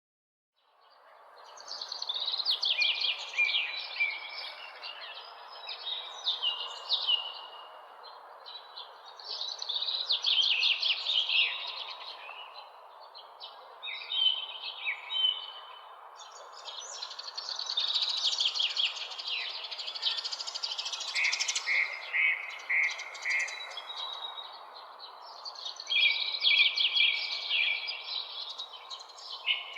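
Several songbirds chirping and singing in rapid, repeated phrases, over a steady background hiss. It fades in out of silence about a second in.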